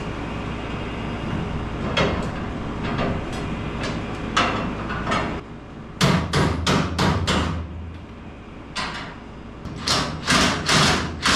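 Sharp metal knocks and clanks from work on hand-forged bumper brackets at a car's front bumper. A few come scattered at first, then a quick run of about five knocks in a row, then more near the end.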